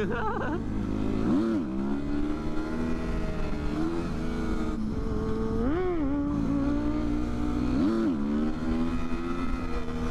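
Motorcycle engine running under way, heard from on board, with quick revs that rise and fall in pitch about a second and a half in, around six seconds and again around eight seconds.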